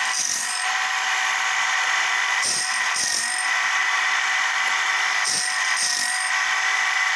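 Homemade automatic bandsaw-blade sharpener running: a steady grinder motor whine, with a pair of short gritty grinding bursts about every three seconds as the stone sweeps across each tooth of a Wood-Mizer-type blade in turn.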